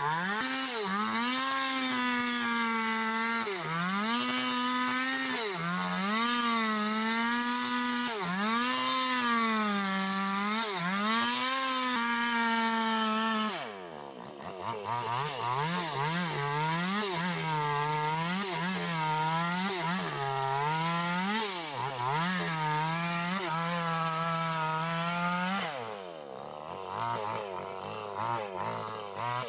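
Chainsaw ripping lengthwise through a squared log of bayur wood, its engine pitch dipping and recovering every second or two as the chain bites under load. About halfway through the engine drops and runs on at a lower pitch, sagging again near the end.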